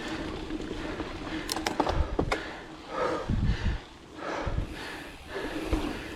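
A mountain biker breathing hard while riding, with several heavy breaths in the second half, over wind rumble on the microphone. A few sharp clicks come about two seconds in.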